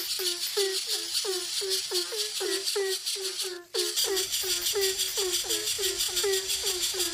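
Bird calls: a fast, even series of short low notes, about four a second, over a dense high-pitched buzzing chorus. Everything drops out briefly about three and a half seconds in.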